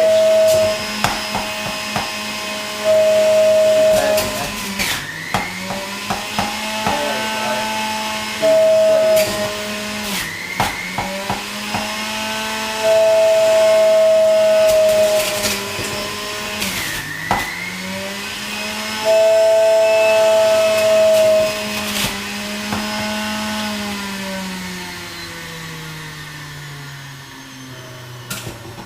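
Centrifugal juicer motor running on its high speed while kale is fed in, its pitch briefly sagging several times under load, with repeated stretches of a loud high-pitched squeal and clicks of produce against the spinning cutter. Near the end the motor's pitch slides steadily down as it slows.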